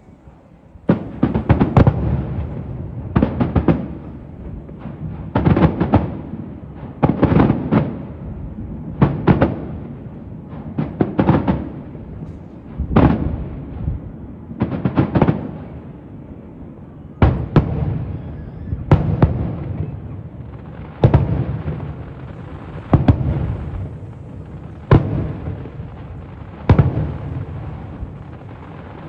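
Aerial fireworks shells bursting one after another, a sharp boom roughly every two seconds, each trailing into a rolling rumble.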